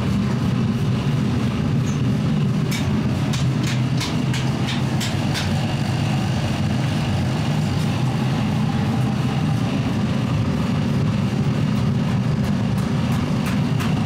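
Steady low rumble of workshop machinery running, with a quick series of sharp taps or clicks about three seconds in and again near the end.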